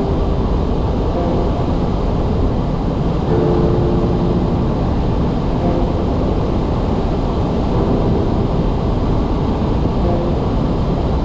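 Steady low rumble of a car driving on a snowy road, with road and engine noise heard inside the cabin.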